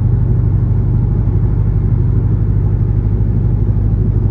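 Dodge Charger R/T's 5.7-litre HEMI V8 with a catless, gutted exhaust, running steadily at highway cruise: an even, low drone with no change in revs.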